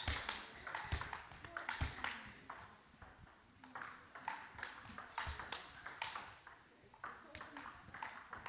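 Table tennis rally: the celluloid-type plastic ball clicking off rackets and table in quick, even succession, about two to three hits a second.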